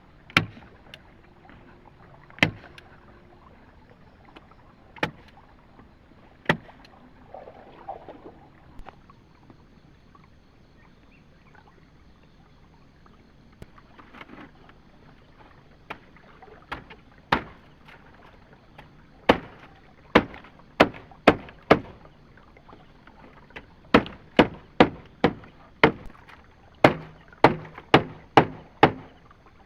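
Sharp blows of a tool striking wood, a few scattered strokes at first, then a steady run of about two strikes a second from about two-thirds of the way through.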